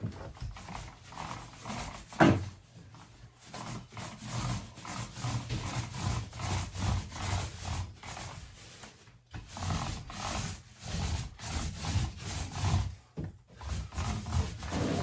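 Paint roller rolled back and forth on a wall in steady strokes, about two a second, with a rubbing, sticky swish. A single sharp knock sounds a little over two seconds in.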